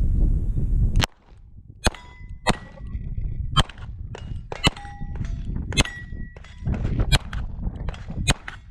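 Beretta 92 9mm pistol fired about eight times at roughly one-second intervals, several shots followed by the brief ring of a hit steel target plate.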